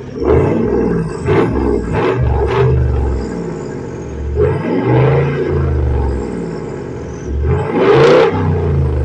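V8 engine of a double-cab pickup being revved repeatedly in the free-air, roaring: several quick blips, then two longer revs that rise and fall, the last and loudest near the end.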